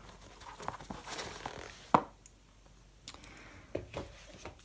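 Hands lifting headphones out of their cardboard box: soft rustling and scattered light clicks of handling, with one sharper click about two seconds in.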